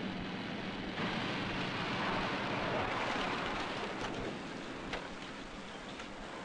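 A car and a police motorcycle pulling over and stopping, heard as engine and road noise. A rush of noise swells about a second in, then fades.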